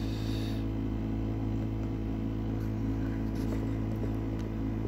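A steady low hum that holds one unchanging pitch, with a few faint clicks over it.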